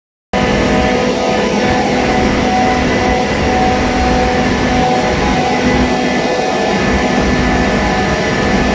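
Bitzer OSNA open-drive ammonia screw compressor running: a loud, steady machine drone with several steady humming tones over a rushing noise. It starts abruptly just after the beginning.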